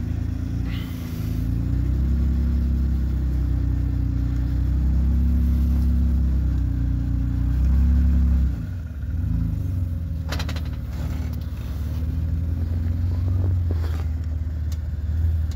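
An off-road vehicle's engine working through a rock obstacle, its revs rising and falling. A few sharp knocks about ten and fourteen seconds in.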